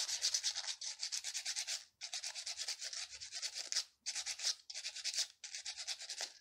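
Sandpaper rubbing by hand on a small wooden dart waggler float body on a cocktail stick, shaping it down: runs of rapid, even scratchy strokes with short breaks about two, four and five and a half seconds in.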